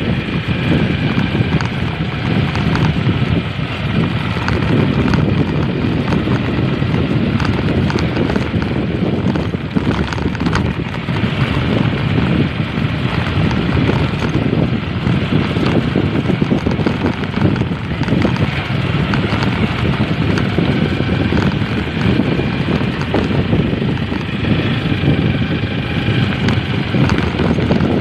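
Wind buffeting the microphone and a motorcycle's running noise as it rides over a rough dirt and gravel road, with scattered knocks and rattles from the bumps.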